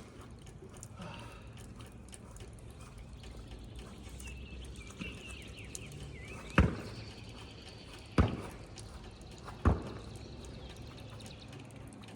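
A basketball bouncing on hard ground: three sharp bounces about a second and a half apart, starting a little past the middle.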